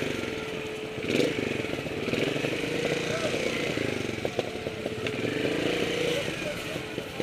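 Trials motorcycle engine running at low revs, with a short rise in revs about a second in.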